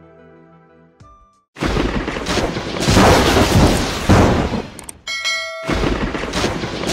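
Soft background music ends about a second in. A loud explosion sound effect follows and runs for a few seconds, then a brief bell-like chime, then a second blast near the end.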